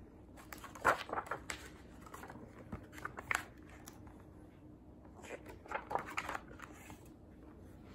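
Pages of a hardcover picture book being opened and turned: paper rustling and crinkling in short clusters, about a second in, around three seconds, and again around five to six seconds.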